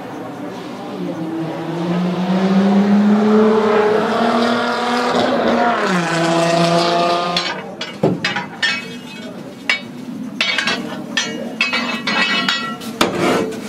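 The No 6 Climax geared steam locomotive's whistle blowing one long blast, its pitch rising slowly and then sliding down to a lower note before it shuts off. It is followed by irregular metallic clanks and knocks.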